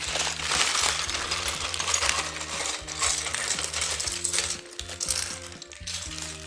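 Small plastic Lego pieces clattering and rattling as they are tipped out of a bag onto a table. The clatter is dense for the first few seconds, then thins out. Soft background music with held notes plays underneath.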